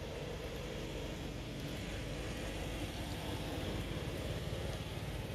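Steady low rumbling background noise, with no distinct sound standing out.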